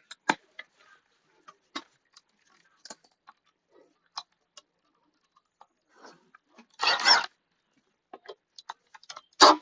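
Hand tools being handled while a socket is tried on a bolt: scattered light clicks and taps, a short rattle about seven seconds in, and a sharp clack near the end.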